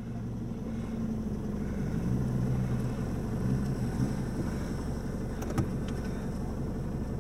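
Off-road four-wheel-drive vehicle's engine running at low revs, its pitch rising slightly for a couple of seconds in the middle, with a couple of light clicks about five and a half seconds in.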